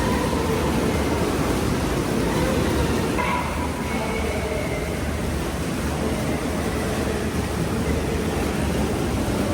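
Hot tub jets churning the water in a steady rush, with faint voices in the background.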